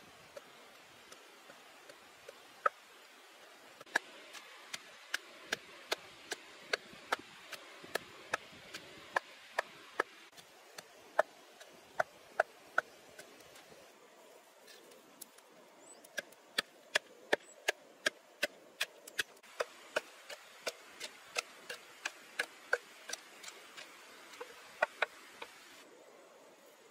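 Chopping: a few scattered knocks, then two long runs of sharp, evenly paced strokes, about two to three a second, with a short pause in the middle.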